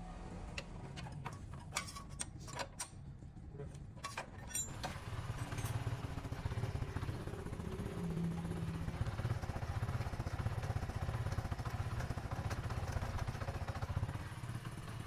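A few light clicks and knocks, then from about five seconds in a motorcycle engine running steadily.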